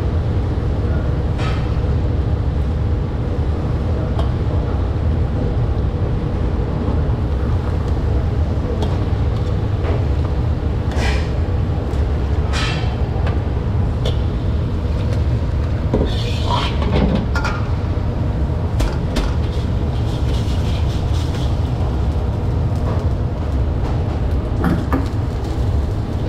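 Steady low roar of a commercial wok burner. The metal ladle scrapes and knocks against the steel wok several times, mostly in the middle and near the end.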